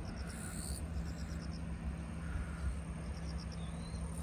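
An insect chirping in short, quick trains of high pulses that come again every second or two, over a steady low hum and rumble.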